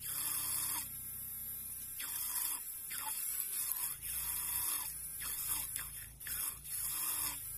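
A small homemade RC-boat propeller on a DC motor shaft, spinning in a tub of water, churning and splashing it in a series of surges, over a steady low motor hum.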